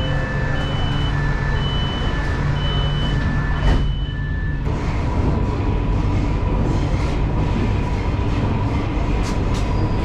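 Metro train door warning: an alternating high-low two-tone beep repeating, with a knock about four seconds in as the doors shut. The beeping then stops and the train's steady running rumble follows, with a thin steady whine over it.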